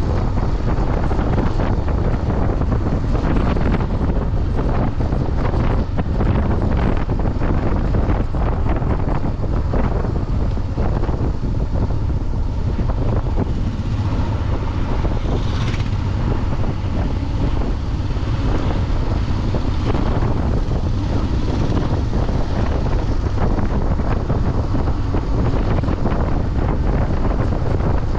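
Wind buffeting the microphone of a motorcycle-mounted camera while riding at steady speed, with the motorcycle's engine and tyre noise underneath.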